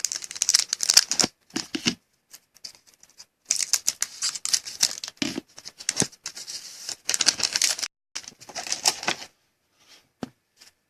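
Trading cards and their pack wrapping being handled close up: crackly rustling and sliding in three spells with short pauses between them, quieter near the end.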